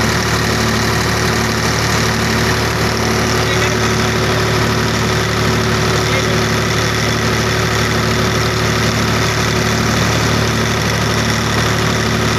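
Farmtrac tractor's diesel engine running steadily at a constant speed, an even hum with a regular low pulse.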